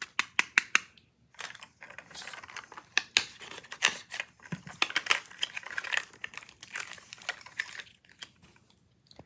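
Hands unwrapping a Mini Brands toy capsule: a quick run of sharp clicks at first, then several seconds of crinkling and tearing of its plastic and paper wrapping, with scattered clicks, dying away near the end.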